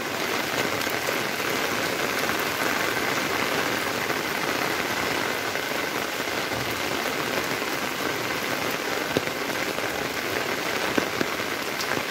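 Steady monsoon rain falling on a flooded street, with a few sharp ticks in the last few seconds.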